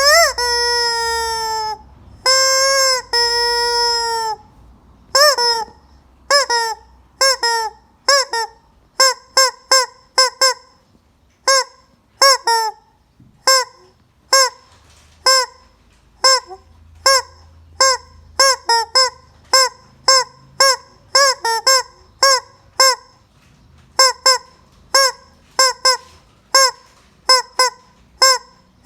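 Rubber squeaky chicken toy being squeezed: first a long falling squawk and two long held squawks, then dozens of short squawks of the same pitch, about one or two a second.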